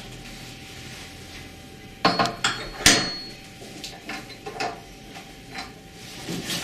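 Metal clanks and knocks as the dryer head's metal bracket is fitted onto the top of the stand dryer's pole. The loudest clank, about three seconds in, rings briefly, and lighter knocks follow.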